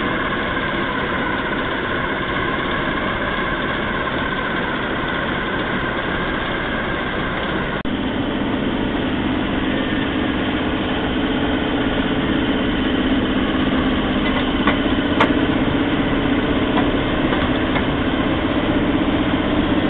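Class 08 diesel shunter's English Electric six-cylinder diesel engine running steadily at idle. About eight seconds in the sound gets a fuller, lower drone, and a single sharp click comes near fifteen seconds.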